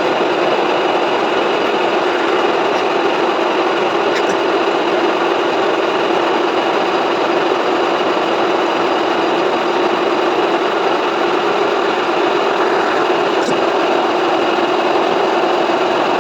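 Metal-turning lathe running steadily, a constant drone with an even hiss over it.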